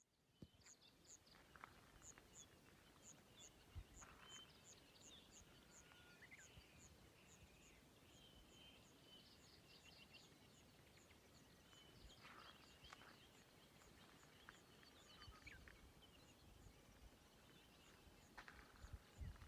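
Faint birdsong: one bird repeats a very high, short chirp about twice a second, while other chirps and brief trills sound from other birds, with a few low thumps.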